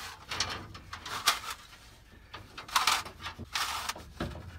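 14-2 Romex electrical cable being pulled through a framing opening, giving irregular bursts of scraping and rustling, about four, as it drags against wood and insulation.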